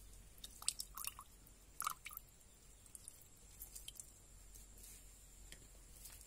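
A lemon being squeezed by hand over a bowl of tender coconut juice: faint wet squishes and small drips of juice falling in, bunched in the first couple of seconds and sparser later.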